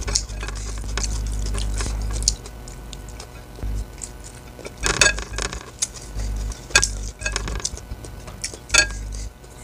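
Eating rice and sambal by hand from a plate: sharp clicks and scrapes of fingers and food against the plate, several times, with chewing between. A low hum comes and goes underneath.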